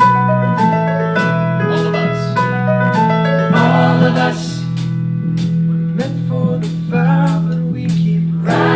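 Live singing with instrumental accompaniment and a steady beat of sharp percussive strokes, about two a second, over a sustained low drone.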